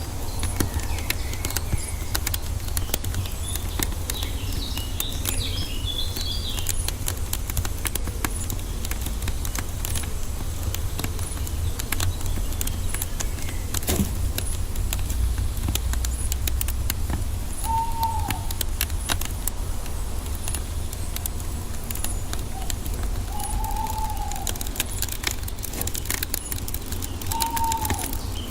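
Wood fire crackling with many small irregular pops over a low steady rumble. Birds chirp briefly about four to six seconds in, and a bird gives three short rising-and-falling whistled calls in the second half.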